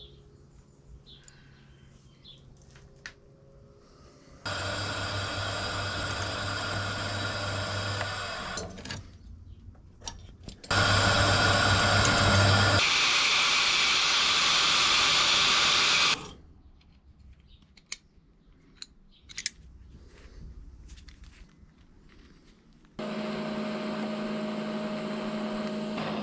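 Hand work at a vise with faint clinks of metal, then an angle grinder runs for a few seconds, stops, starts again and cuts loudly through a thin metal strip with its cut-off disc for about three seconds. Near the end an electric welder's arc starts with a steady buzzing hum.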